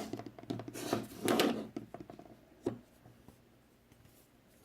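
Hands handling a folding pocket knife: rubbing and shuffling for the first two seconds, then a single sharp click.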